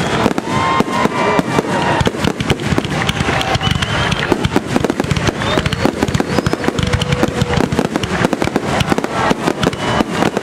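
Fireworks display: a dense, continuous barrage of aerial shells bursting, many sharp bangs in rapid succession with no pause.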